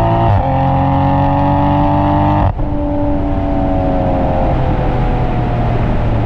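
Toyota A90 Supra's exhaust note while driving, a steady droning stack of engine tones. The pitch drops sharply just after the start and creeps up a little. The sound breaks off abruptly about two and a half seconds in, then picks up again and slowly falls as the revs ease off.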